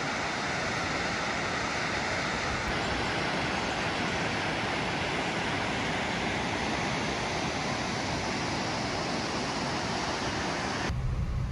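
Waterfall rushing: a steady, even wash of water noise. Near the end it cuts abruptly to the low hum of a car on the road.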